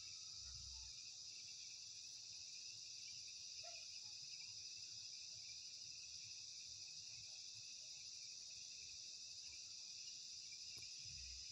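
Faint, steady chorus of crickets, a continuous high-pitched trilling that never lets up.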